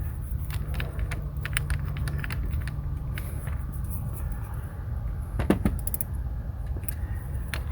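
A wrench clicking and clinking in short runs as a battery cable terminal nut is tightened, over a steady low hum.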